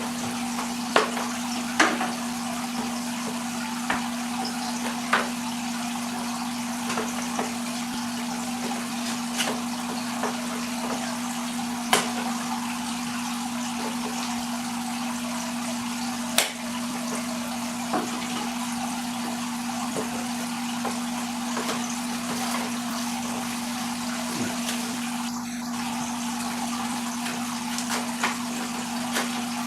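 Steady rush of aquarium water circulation with a constant low hum, broken by scattered sharp clicks and knocks of packaging and parts being handled.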